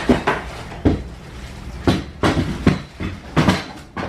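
Parts of a metal backdrop stand being taken out of their box and handled, giving a series of knocks and clatters as the pieces strike one another.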